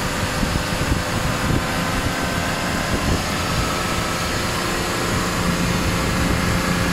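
BMW E39's driven wheel, differential and drivetrain spinning at road speed in fifth gear with the wheels off the ground: a steady mechanical whir, with a steady low hum coming in about five seconds in. The vibration being chased comes from the wheel, which the mechanic puts down to its being out of balance.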